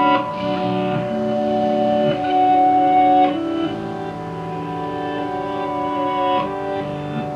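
Ambient electric guitar looping: several held notes looped and layered through delay, with a new note plucked over them every second or two. The sound is washed in a Marshall practice amp's spring reverb turned all the way up.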